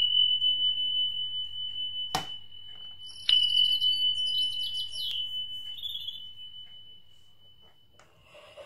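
Electronic chime from a children's sound book's built-in speaker: one high ringing tone that starts sharply as the button is pressed, is struck again about three seconds in and slowly fades, with short high twittering notes around four to five seconds. A sharp click about two seconds in.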